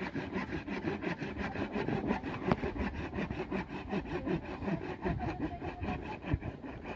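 Hand saw cutting through a thin, dry tree branch in quick back-and-forth strokes.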